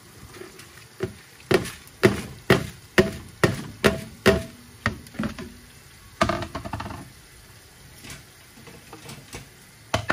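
Plastic container knocked against the rim of a large metal pot, about eight sharp knocks at roughly two a second with a faint metallic ring, shaking the last soaked rice into boiling water. A short clatter follows a second or so later.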